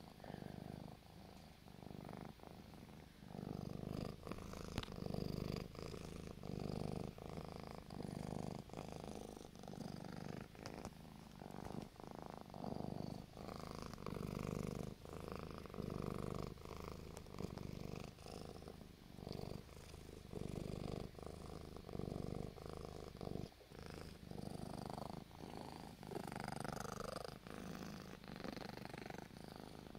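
Domestic cat purring close to the microphone, a low steady purr that swells and fades with each breath, about once a second.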